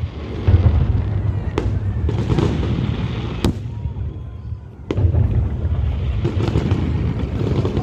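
Fireworks display going off: deep booming bursts, rising sharply about half a second in and again about five seconds in, with single sharp cracks between them.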